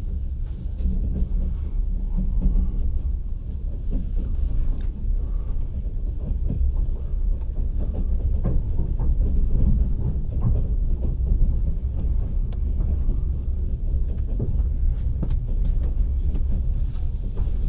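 Passenger train carriage in motion: a steady low rumble from the wheels and running gear, with short knocks and clicks of the wheels on the rails, most frequent in the middle stretch.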